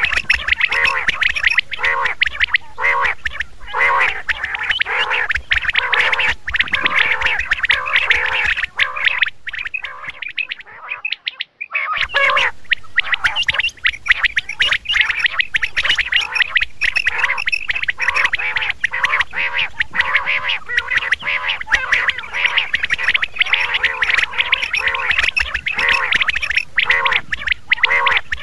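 Common quail calling over and over in a quick, steady series, about one or two calls a second. The calls break off for about two seconds near the middle, then carry on.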